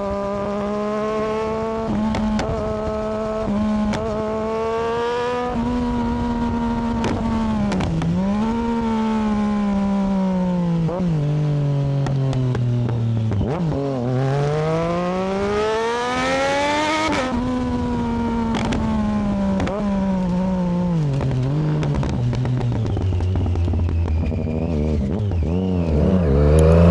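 Triumph Daytona 675R's three-cylinder engine running under way. Its pitch rises and falls as the bike speeds up and eases off, with one long climb about halfway through that peaks and drops back, and a lower, steadier note near the end.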